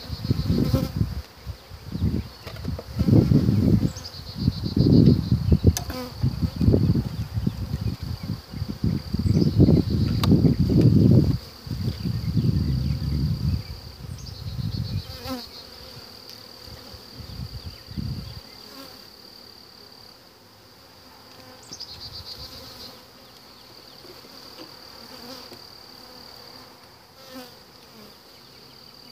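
Honeybees buzzing around an opened hive while a frame is worked out of the box. The buzz is loud and uneven for about the first half, then settles to a softer steady hum.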